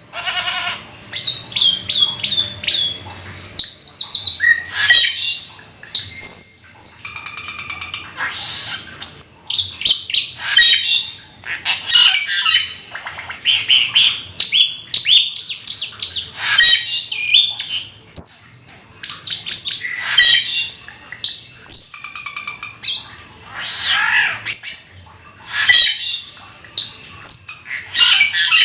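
Jalak keling starling singing in full song: a fast, varied run of whistled notes, rising and falling sweeps and harsh chattering calls, with only short breaks between phrases.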